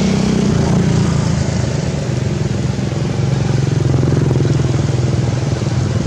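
A motor vehicle's engine running steadily, its pitch dropping about half a second in and then holding, over a steady hiss of rain.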